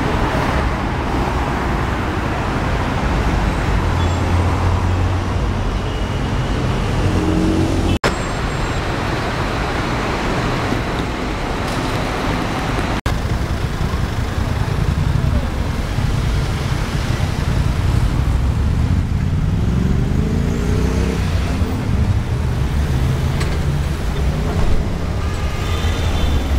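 Steady city street traffic: car and bus engines running and passing by, with one vehicle's engine rising in pitch as it accelerates about three-quarters of the way through. Voices of passers-by mix in with the traffic.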